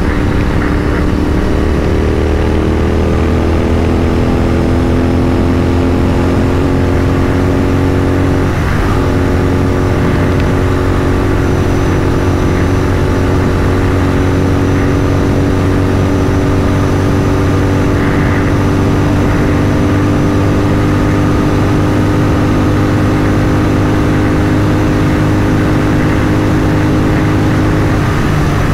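Royal Enfield 650 parallel-twin motorcycle engine running at a steady highway cruise, its note climbing slightly over the first few seconds and then holding even.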